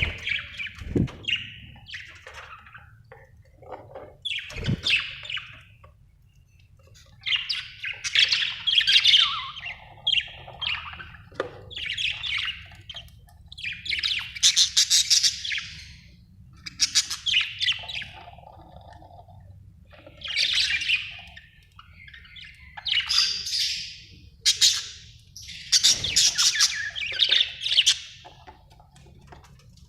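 Budgerigars chirping and warbling in bursts of a second or two, with short gaps between, mixed with occasional harsher squawks.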